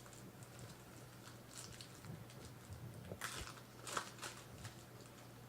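Faint crackles and clicks of trading cards and their plastic being handled, a few sharper snaps about three and four seconds in, over a steady low electrical hum.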